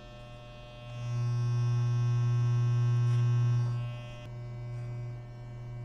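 Electric hair clipper running with a steady low buzz. It gets louder for a couple of seconds from about a second in, then eases off.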